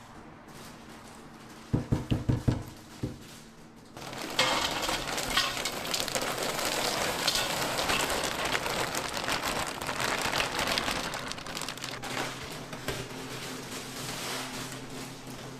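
A quick run of dull knocks, then food sizzling on a hot griddle, starting suddenly about four seconds in and slowly easing off.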